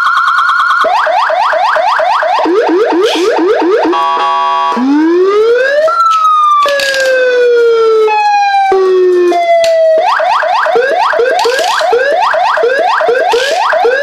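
AS9000B 200-watt wireless electronic siren sounding through its speaker, switched through several siren modes: a steady high tone, rapid repeating yelp sweeps about four a second, a brief buzzing horn tone, a slow rising wail and slow falling sweeps, then rapid yelps again near the end.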